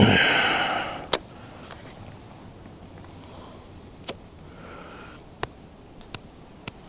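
A cast with a baitcasting rod and reel: a quick swish of the rod, then the spool whirring as line pays out and fading over about a second, followed by a sharp click. A few fainter clicks come later.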